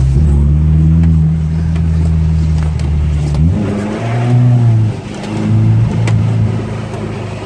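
Ford Ranger pickup's engine running hard under load while the truck is drifted. About three and a half seconds in, the pitch drops suddenly, and the engine then revs up and down several times.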